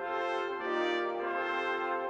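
Pipe organ playing a hymn tune in sustained chords, with a bright, brass-like tone; the chord changes about every half second to second.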